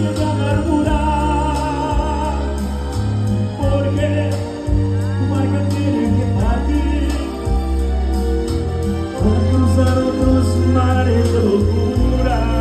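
Live music: a singer holding notes with vibrato over a band with deep bass notes.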